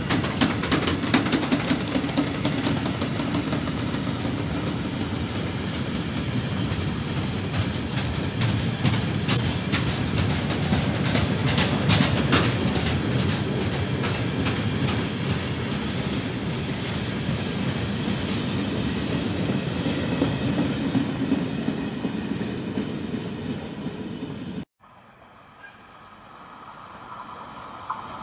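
A freight train of flat wagons rolls past with a steady rumble, its wheels clattering over the rail joints. About three-quarters of the way through it cuts off abruptly, and a quieter sound of another train approaching grows steadily louder.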